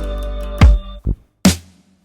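Background music with strong drum hits, breaking into a few separate hits and then stopping near the end.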